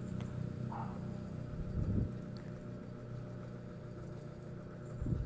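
Steady low street hum, engine-like, with a couple of brief bumps about two seconds in and just before the end.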